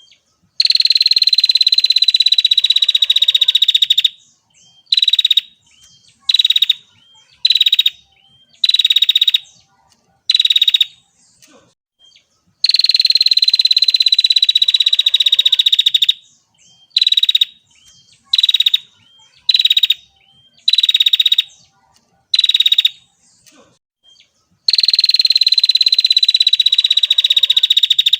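Female prinia (prenjak) giving its rapid, buzzy rattling trill, the 'ngetir' call, over and over: three long trills of about three and a half seconds, each easing slightly down in pitch, with runs of short trills of under a second between them.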